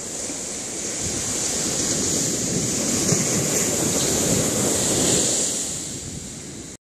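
Ocean surf: waves breaking and washing up a sandy beach, with wind buffeting the microphone. The wash builds over the first few seconds, eases off after about five seconds and then cuts off abruptly.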